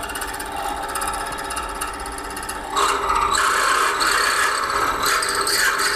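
Esteem M1TR turret milling machine drilling a metal workpiece: the spindle runs with steady tones while the drill bit cuts with a scraping squeal. The cutting noise grows louder about three seconds in.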